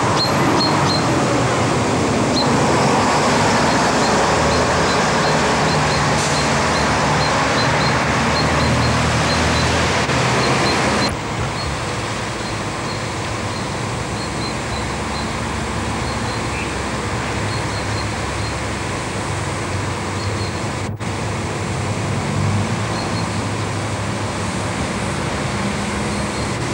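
Steady, loud rushing outdoor noise with faint, short high chirps scattered through it; it drops in level about eleven seconds in at a cut.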